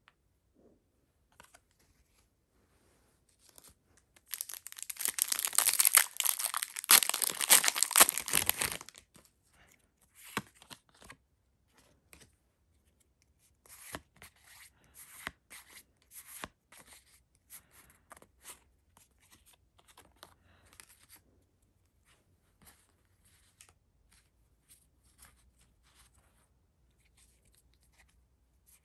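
Pokémon TCG booster pack's foil wrapper torn open in one loud, crinkly stretch of about five seconds, followed by quiet paper-card handling: cards slid and flipped one at a time with soft clicks and rustles.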